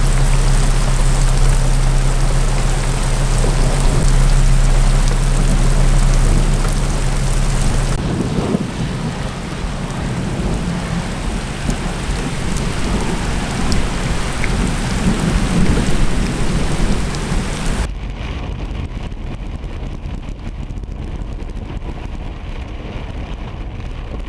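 Heavy thunderstorm rain pouring steadily, with rumbling in the middle stretch. The sound changes abruptly about eight seconds in and again about eighteen seconds in, the last part duller. A steady low hum sits under the first part.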